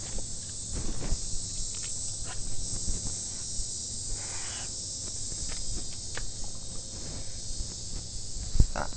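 Steady high chirring of insects outdoors, with a few light clicks and a brief rustle of handling close by.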